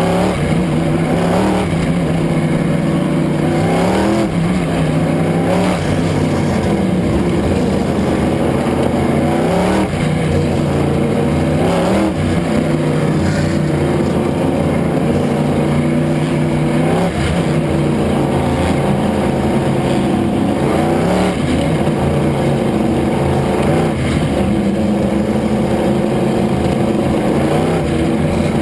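Race car engine running hard through a qualifying run, its pitch rising and falling again every few seconds as the throttle comes on and off.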